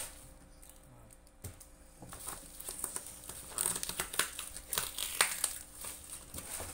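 Bubble wrap crinkling and rustling as hands tug and peel it off a box. The sound is irregular, faint at first and busier from about two seconds in.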